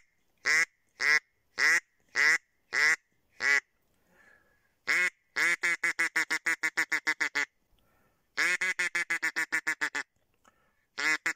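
Kynat mouth-blown duck call imitating mallard quacks to lure ducks: seven evenly spaced quacks about half a second apart, then after a pause two fast runs of rapid quacks.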